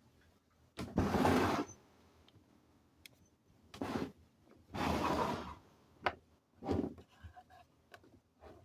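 Several short scraping or rubbing noises with a few sharp knocks, as something is handled. There is no steady motor hum.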